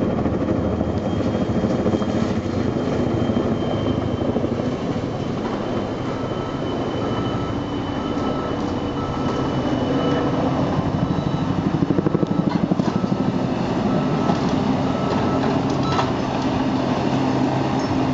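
Tandem-rotor logging helicopter hovering overhead on a long line, its rotors beating in a fast, steady chop over the engine noise.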